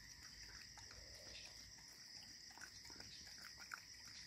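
Near silence: faint steady chirring of crickets at two pitches, with a few soft clicks as a dog eats rice off newspaper.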